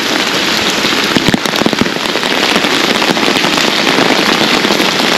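Heavy rain falling: a steady, dense patter of close drops, crackling with many small ticks.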